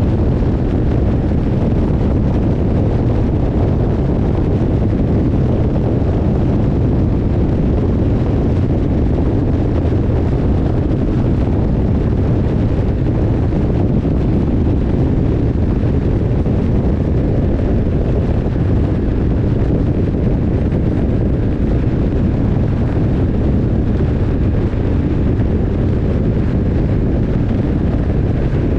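BMW R 1150 R motorcycle riding at a steady speed: its boxer twin engine running under heavy wind rush on the microphone. The sound holds steady with no gear changes or sudden events.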